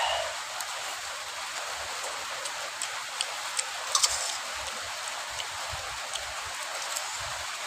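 Steady hiss of rain, with a few light clinks of a spoon against a steel plate about three to four seconds in.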